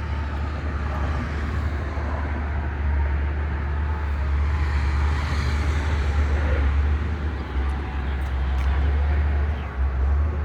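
Steady low rumble of road traffic or vehicle engines running in the background.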